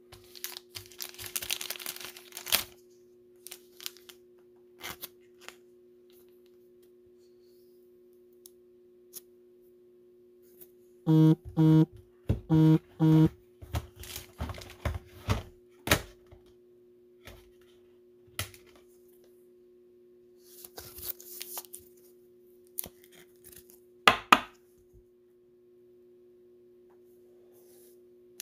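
Trading cards being handled: plastic sleeves and wrappers crinkling and rustling, light taps, and a sharp click near the end, over a faint steady electrical hum. About eleven seconds in come two pairs of short, loud buzzes.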